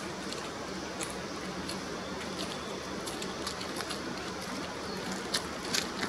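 Steady outdoor rushing noise with scattered short, high-pitched chips, several in quick succession near the end.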